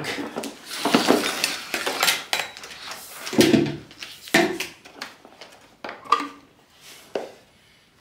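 Hard plastic knocking and clicking as a Bosch Series 2 canister vacuum cleaner is handled and its top lid is unlatched and swung open to reach the dust bag. There is a string of separate knocks and clicks, the loudest about three and a half seconds in, getting fainter towards the end.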